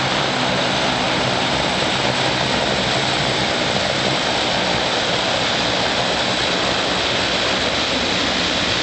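De Havilland Canada DHC-7 Dash 7 taxiing, its four PT6A turboprop engines and propellers running steadily: a loud, even rush with a low propeller hum beneath it.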